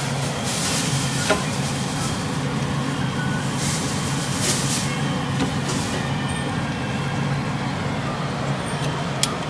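Hot oil sizzling as dough sticks deep-fry in a pot, a steady hiss with a few brief louder surges, over a steady low hum.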